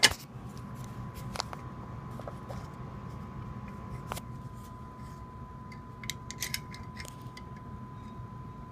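Scattered short clicks and taps from the mechanism of a CPG 4050-001T manual pull station being handled, with a cluster of several clicks near the end, over a faint steady hum and thin high tone.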